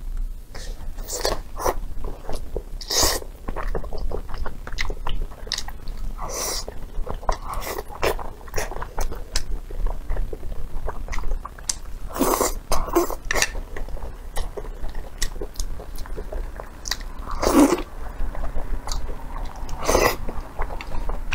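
Close-miked eating: a person chewing and slurping noodles, with irregular wet mouth clicks and several louder drawn-in slurps.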